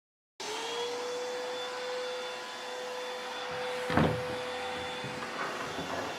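Table saw motor and blade running steadily with a constant whine, with a sharp knock about four seconds in and a few lighter knocks near the end.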